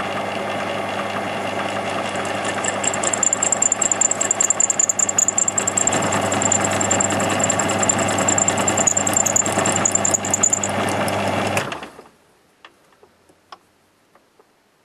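Metal lathe running with a copper plate clamped to its faceplate while the tool turns the plate's corners and edges: a steady motor hum under the cutting noise, with a high whine and unevenly jumping loudness from about two seconds in. The lathe shuts off about twelve seconds in, followed by a few faint clicks.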